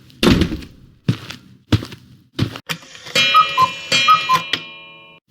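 Cartoon footstep sound effect: evenly spaced knocks about every 0.7 seconds as the character walks. Partway through, a short chime plays a high-low note pair twice and rings out for about two seconds.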